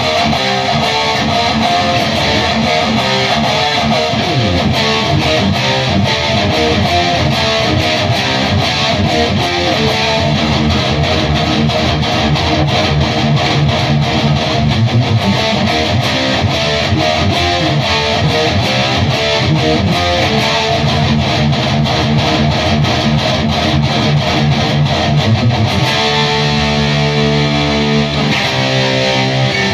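Distorted electric guitars played through Bugera 333XL tube amp heads into a Mesa speaker cabinet: fast picked, chugging riffs, switching about 26 seconds in to held chords.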